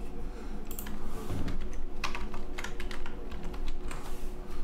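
Computer keyboard being typed on: short, irregular runs of key clicks.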